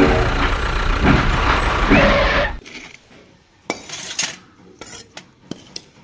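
Toy steam train's built-in sound effect: the tail of a whistle, then a loud steam hiss that cuts off abruptly about two and a half seconds in. Then light metallic clinks of a small chain and hook being handled.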